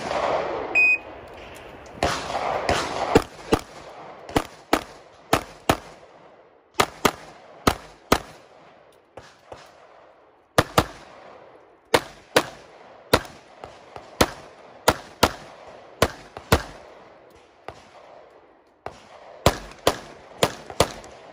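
A shot timer beeps once, then a pistol fires a stage string: sharp shots, mostly in quick pairs, with two short breaks in the firing.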